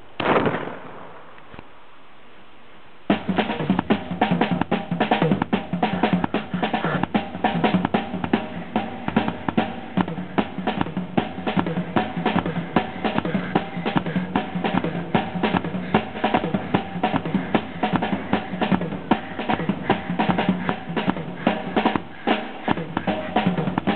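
A single pistol shot right at the start. About three seconds in, a drum kit (Pearl drums, Zildjian cymbals) starts into fast, frantic drumming on snare, bass drum and cymbals that keeps going without a break.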